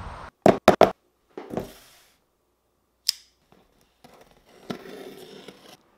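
A cardboard shipping box being handled and opened by hand: three quick knocks near the start, a sharp click about three seconds in, then scratchy rustling as the tape and cardboard flaps are pulled open.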